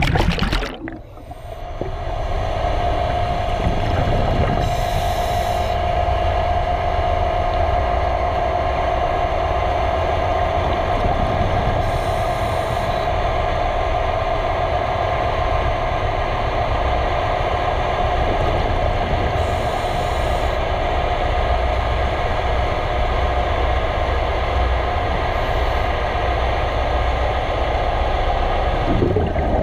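Steady underwater machinery hum with a constant mid-pitched tone over a low rumble, picked up by a camera working along a ship's hull and propeller. A sharp noise comes at the very start, and faint brief hisses recur about every seven seconds.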